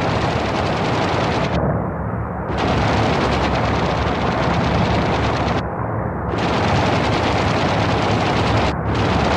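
Sustained rapid aircraft machine-gun fire over a steady propeller-engine drone. The firing breaks off briefly about two seconds in, again about six seconds in, and for a moment near the end.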